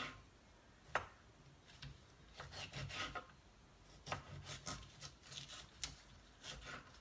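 Knife chopping bell pepper finely on a cutting board, in quick, uneven runs of strokes.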